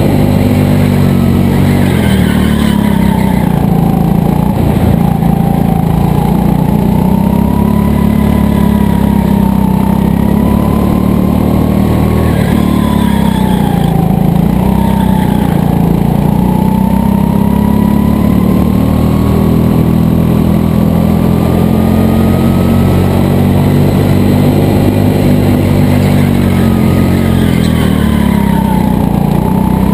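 Go-kart motor running hard through a lap, its pitch dipping and climbing again every few seconds as the kart slows for corners and speeds up out of them.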